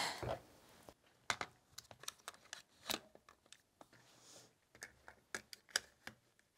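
Irregular light clicks and knocks of PIHER plastic one-hand bar clamps being handled and tightened on a glued-up wooden block.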